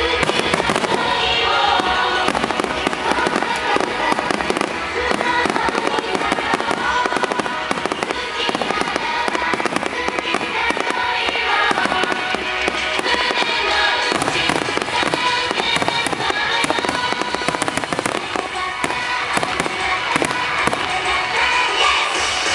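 Fireworks exploding and crackling in a dense, continuous barrage, with music playing alongside.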